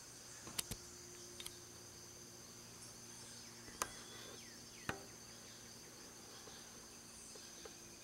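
Steady high-pitched insect chorus, cricket-like. Over it come a few sharp knocks: a quick double knock about half a second in, a fainter pair soon after, and single knocks near four and five seconds.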